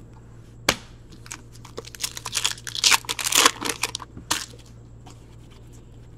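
Foil trading card pack wrapper torn open and crinkled by hand: a sharp snap under a second in, then about two seconds of crinkling, ending with another snap a little after four seconds.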